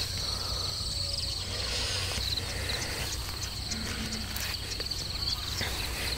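Field insects chirping in a rapid, pulsing high trill that keeps going throughout, over a steady low rumble.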